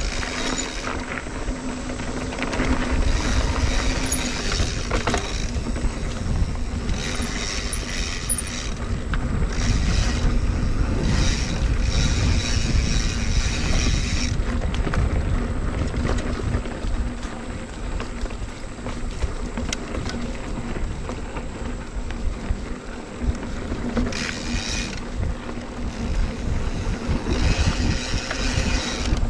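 Mountain bike riding on a dirt trail: wind rushing over the camera microphone with the rumble and rattle of tyres and drivetrain over the ground, and the rear freehub's ratcheting buzz in a few short spells of coasting.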